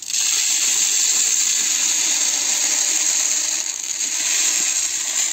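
Grain poured in a steady stream from a cut plastic bottle into a plastic-bottle bird feeder, the seeds pattering against the plastic and each other. It starts suddenly and runs steadily.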